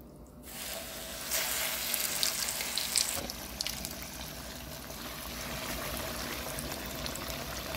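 Breaded fish fillets frying in hot oil, a steady sizzle. It starts about half a second in as the first fillet goes into the oil and gets louder about a second later, then holds.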